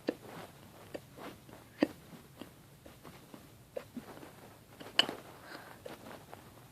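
A person hiccuping: three sharp hiccups a couple of seconds apart, with fainter clicks between.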